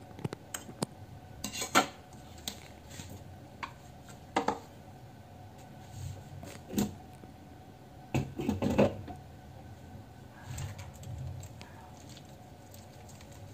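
Kitchen utensils and dishes being handled: scattered clinks and knocks, the loudest about two seconds in and a cluster about eight to nine seconds in.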